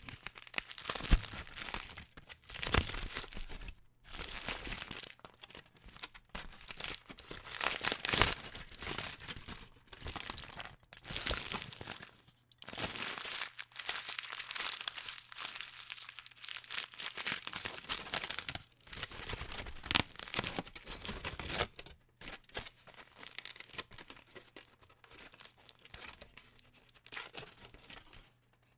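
Aluminum foil being crumpled and crinkled by hand in a long run of bursts of sharp, crackling rustles with short pauses between them, some sounding like tearing.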